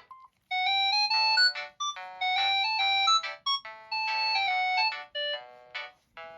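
Samsung SGH-D500 polyphonic ringtone playing: a short, bright synthesized melody of quick notes over chords, starting about half a second in.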